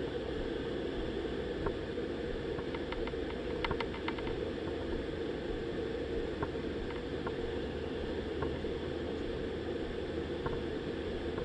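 Steady low rushing outdoor background noise with a few faint light clicks, a small cluster of them about three and a half to four seconds in.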